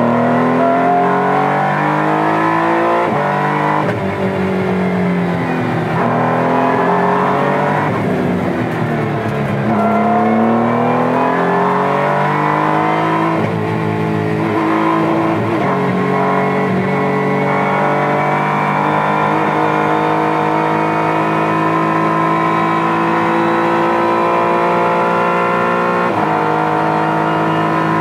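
Honda NSX GT3's twin-turbo V6 race engine heard from inside its cockpit, its revs rising and falling through a series of corners. It then pulls steadily up through the gears along a straight, with a quick upshift near the end.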